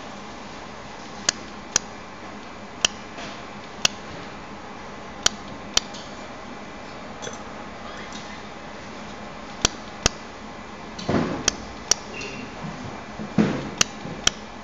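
Pulsed laser spot welder firing on stainless steel: single sharp snaps, about eleven, often in pairs half a second apart, over a steady machine hum. Near the end come two short bouts of rustling and handling noise.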